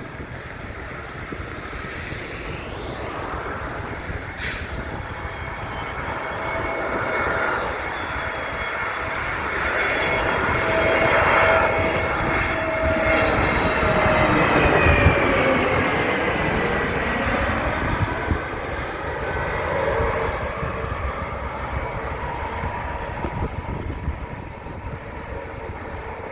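An airliner's engines going past: the noise builds to its loudest about halfway through, and the engine whine drops in pitch as the aircraft passes, then fades away.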